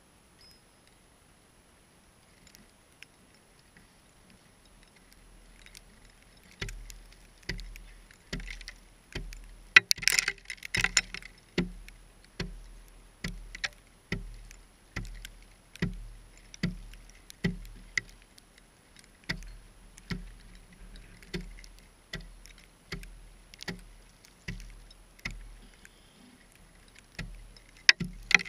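An axe chopping at the rim of a hole in thick lake ice to widen it. It starts several seconds in and goes on as a steady run of sharp blows with a dull thud, a little more than one a second, with a louder crunching flurry about ten seconds in.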